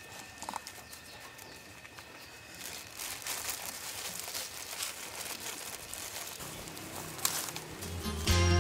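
Thin plastic bag crinkling and rustling in a flurry of irregular crackles as it is opened and handled. Music comes in near the end.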